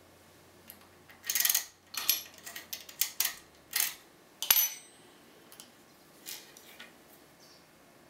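Small metal lockpicking tools and a key clinking and rattling as they are handled and set down on a workbench: a quick run of sharp clinks, one ringing briefly about four and a half seconds in, then a few faint ticks.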